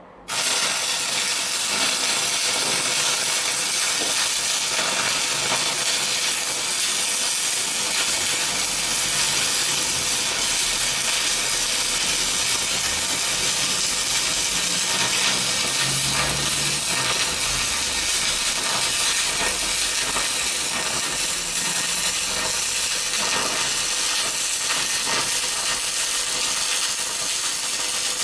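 Homemade belt grinder starting suddenly and then running steadily, its abrasive belt giving a continuous loud hiss over a faint motor hum.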